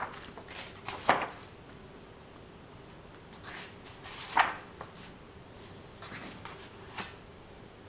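Paper pages of a thick paperback book being turned by hand: a few brief swishes and rustles, the loudest about four and a half seconds in.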